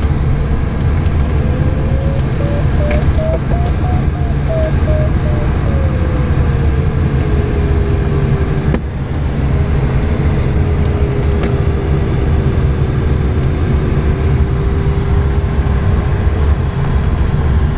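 Steady low rumble of the Arcus E glider's cockpit in flight. Over it, an electronic audio tone, most likely the variometer, rises into short beeps a few seconds in, then falls back to a steady lower tone.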